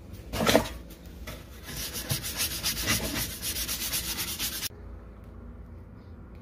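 Stiff bristle brush scrubbing soapy plastic air-box and air-filter parts in a stainless steel sink, in fast, even strokes. The scrubbing stops abruptly about two-thirds of the way through, leaving a low steady hum.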